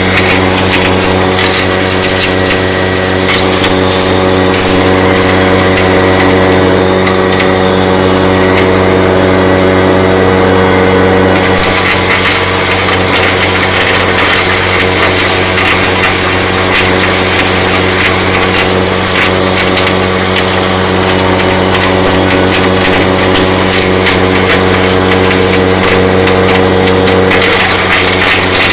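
Motor-driven corn grinder running steadily under load, grinding dry corn into animal feed: a constant motor hum with a dense crushing, rattling noise over it. The grinding noise gets brighter and fuller about a third of the way in.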